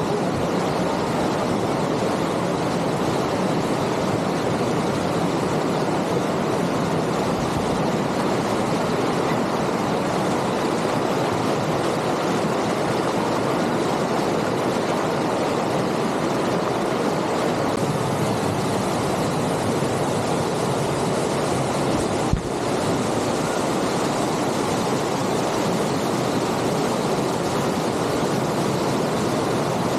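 Aira Force waterfall's rushing water, a steady unbroken noise. A single brief click about three-quarters of the way through.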